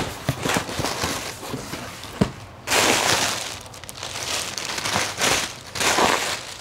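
Plastic air-cushion packing pulled from a cardboard box and handled, crinkling in loud bursts from a little under halfway in, after a few small knocks and scrapes of the box.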